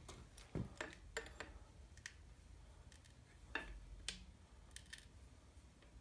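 Scattered light metallic clicks and taps, about a dozen at irregular spacing, from a cam bearing installer tool being worked in an engine block while a cam bearing is fitted.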